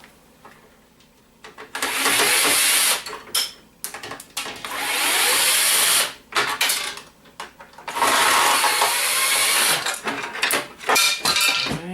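A handheld power tool runs in three bursts of one to two and a half seconds each, with short clicks and knocks between them, as parts are taken off a scrap printer.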